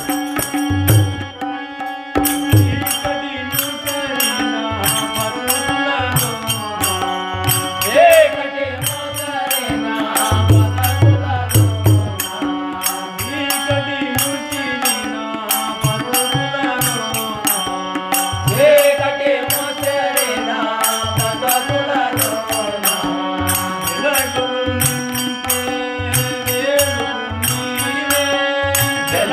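Telugu devotional bhajan: men singing to a harmonium's held chords and tabla, with small brass hand cymbals struck in a steady beat.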